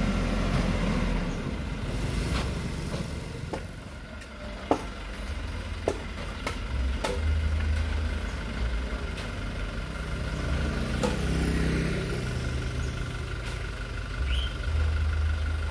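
Old truck's diesel engine running steadily at a low rumble, with a few sharp knocks a third of the way through and a brief swell in engine sound a little past halfway.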